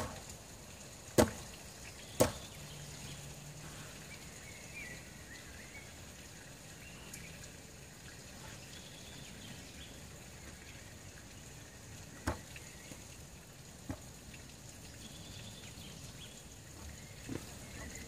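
Dunlop Purofort boots knocking on a wooden bench seat: two loud, sharp thuds about a second and two seconds in, then a few softer knocks later as the wearer shifts and steps off. Faint bird chirps are heard over quiet forest ambience.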